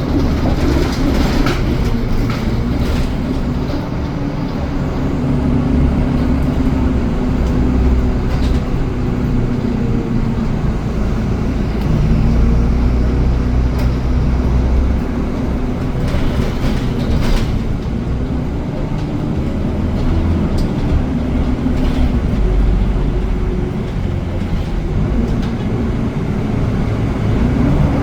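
Moving bus: a steady low rumble with an engine hum that slowly rises and falls in pitch.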